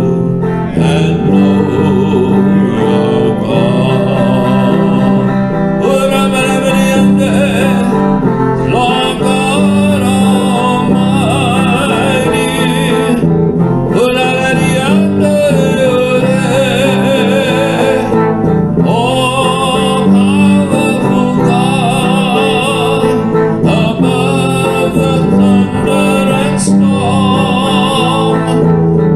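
A man singing a slow worship song while accompanying himself on a clean-toned electric guitar.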